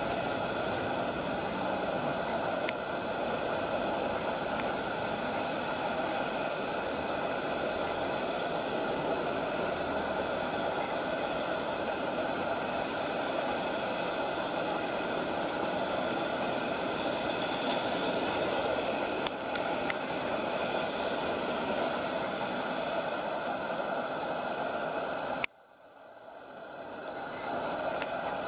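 Steady road traffic noise. About 25 seconds in, the sound cuts out suddenly and swells back over a couple of seconds.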